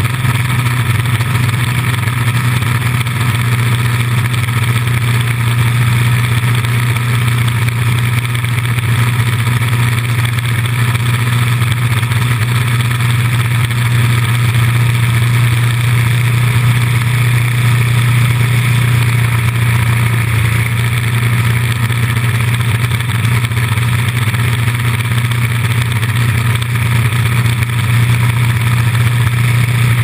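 Norwood LM29 portable band sawmill running at a steady cutting speed, its engine holding an even, unchanging drone while the band blade saws lengthwise through a log.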